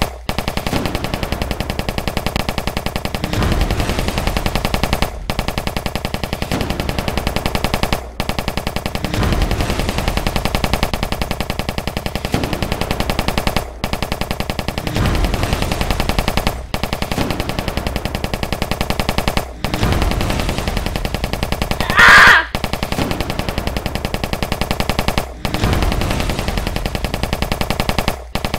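Battle sound effect of continuous rapid machine-gun fire, looping with a brief break every few seconds. A low boom recurs about every six seconds, and one sharp, louder blast comes about two-thirds of the way through.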